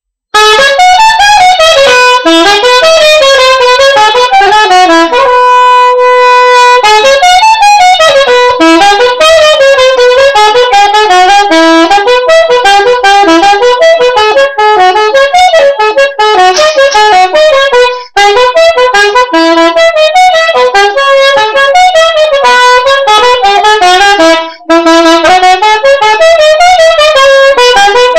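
Solo soprano saxophone playing a loud, fast melody of quick notes, with one long held note about five seconds in and two short breaks for breath later on.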